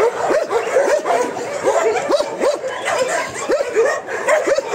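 Many shelter dogs barking and yelping at once, a dense chorus of short overlapping barks that never lets up.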